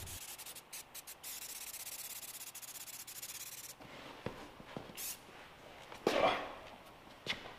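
Aerosol can of heavy-duty black spray paint hissing: a few short spurts, then a steady spray that stops a little under four seconds in. After it come a few light knocks and a short rustle.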